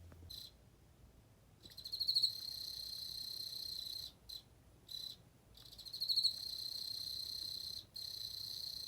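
Male Emma field cricket (Teleogryllus emma) singing: a few short chirps and then long, high, trilling phrases of a couple of seconds each, broken by brief pauses.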